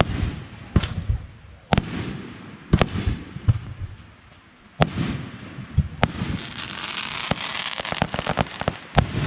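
Aerial fireworks shells bursting in sharp booms, roughly one a second, each trailing off in a low rumble. About two-thirds of the way through comes a spell of dense crackling from crackle effects, ended by another bang.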